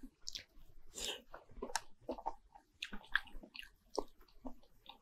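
A person eating beef tendon, close to a clip-on microphone: biting and chewing, heard as short, irregular mouth clicks and smacks several times a second.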